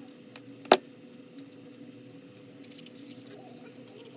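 One sharp click of a tool or part against a hard surface about three-quarters of a second in, with a few faint handling clicks over a steady low hum.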